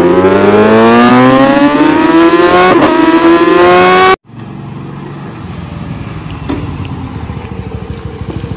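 Scooter engine accelerating, its pitch rising steadily as it picks up speed, until it cuts off abruptly about four seconds in. A quieter, steady engine hum follows.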